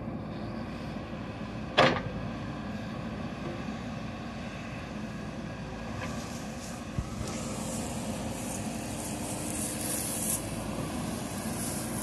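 JCB 3DX backhoe loader's diesel engine running steadily while its hydraulics work the backhoe arm and bucket through soil. A single sharp knock about two seconds in, a smaller one near the middle, and a hiss building in the second half.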